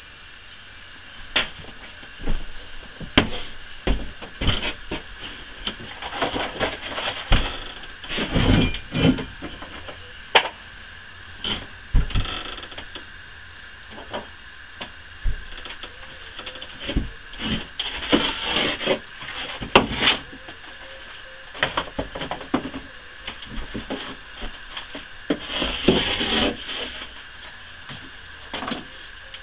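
Irregular knocks, clicks and scrapes of things being handled, with a few longer stretches of rattling and rustling.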